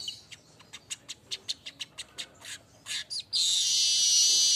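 Manyar (weaver bird) singing: a run of sharp chip notes, about four a second, then a dense, high, buzzy song that takes over about three seconds in.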